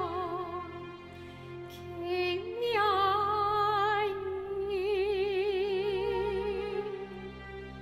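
Slow music: a melody of long held notes with wide vibrato over a low sustained accompaniment, stepping up in pitch about two and a half seconds in.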